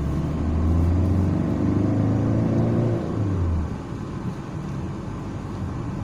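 Car engine and road noise heard from inside the cabin while driving on a highway. The low engine hum is strong for the first few seconds, then drops away and quietens about halfway through, leaving a steady road rumble.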